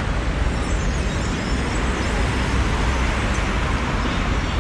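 Street traffic noise: a steady low rumble of passing cars.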